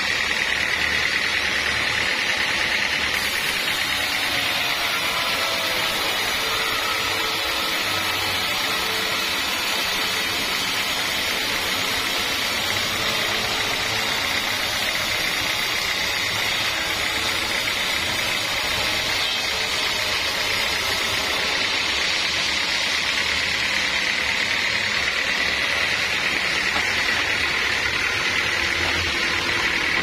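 Band sawmill running steadily: a constant mechanical drone with a steady high whine over it.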